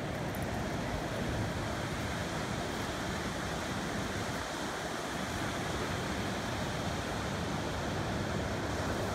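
Steady ocean surf washing on a sandy beach, with wind noise on the microphone.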